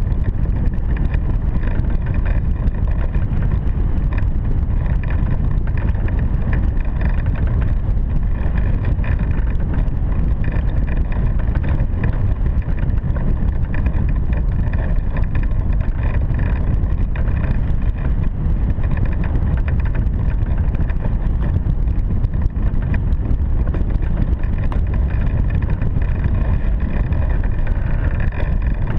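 Steady low rush of airflow buffeting the microphone of a camera mounted on a hang glider in flight.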